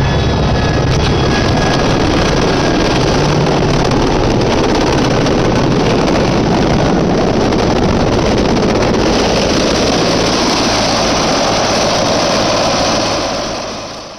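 Helicopter rotor and turbine engine running steadily at close range, with wind buffeting the microphone; the sound fades out near the end.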